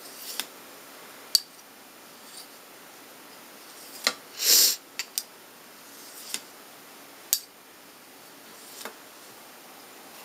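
Steel blade of a Mora bushcraft knife stroked across a Fallkniven DC4 pocket sharpener to take the burr off the edge: a few scattered short hissing scrapes and sharp clicks, the longest and loudest scrape about four and a half seconds in.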